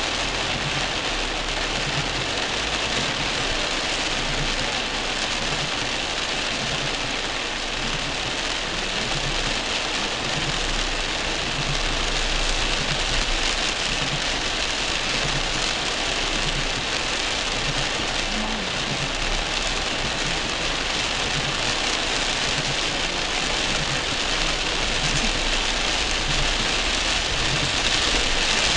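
Heavy rain drumming on a car's roof and windscreen, heard from inside the cabin. Under it is the low, steady hum of the car's engine idling in stop-and-go traffic.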